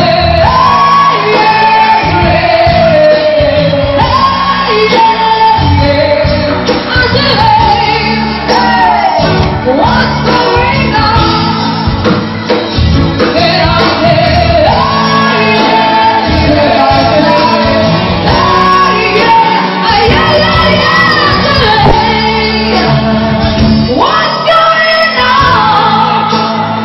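Live band playing loud, with male and female singers on microphones singing over electric bass and guitar.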